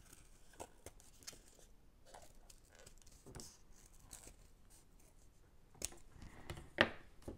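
Scissors snipping through thin cardboard as a small circle is cut out: a series of faint, irregular snips, with two louder clicks about six seconds in.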